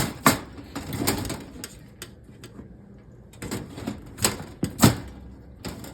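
Parts of a mini greenhouse kit clicking and knocking as they are handled and snapped together. The sharp clicks come irregularly, with a lull in the middle; the loudest is near the end.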